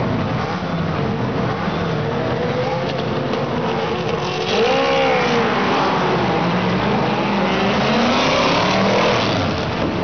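A grid of historic racing cars revving their engines, then the field accelerating away from the start, with engine pitch rising and the sound growing louder about four and a half seconds in.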